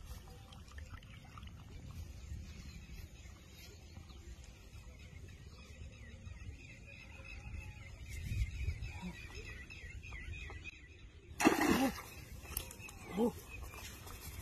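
Low steady rumble, then about eleven seconds in a sudden loud splash as a fish is grabbed by hand in the shallows and flung out onto the grassy bank.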